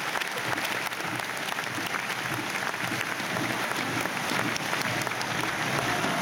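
Crowd applauding steadily, a dense clapping of many hands.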